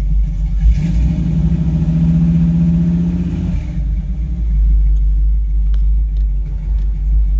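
Camper engine running just after a push-button start, a steady low rumble with a louder hum that comes in about a second in and drops away after about two and a half seconds.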